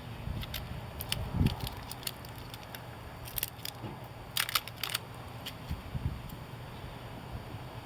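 Scattered small clicks and light crackling from handling a tire plug kit's insertion tool and sticky plug strips, with a quick cluster of clicks a little past the middle and a couple of soft thumps.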